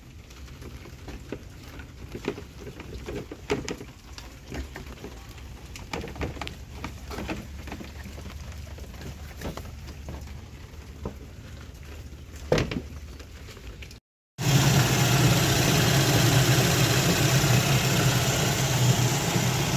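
Scattered clicks and knocks over a faint low hum, the loudest knock near the middle. After a short break comes the Chevy Traverse's 3.6-litre V6 engine idling, steady and much louder, with coolant freshly topped off after a heater hose replacement.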